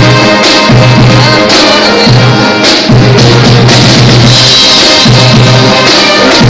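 Junior high school band playing loud brass and drum music: sousaphones and brass hold long low notes over a steady drum beat.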